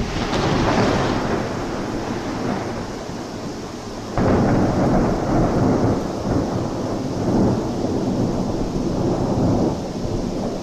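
Thunder: a loud clap right at the start that rumbles on, then a second sudden clap about four seconds in that rolls and rumbles for several seconds.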